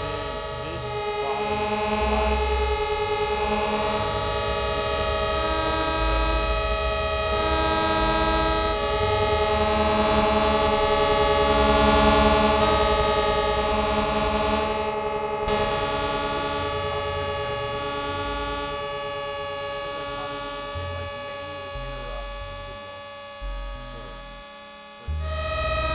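Electronic instrument played by touch, holding a drone of several steady tones while low bass notes change every second or two. It cuts out for a moment about halfway, fades gradually through the second half, and comes back in full just before the end.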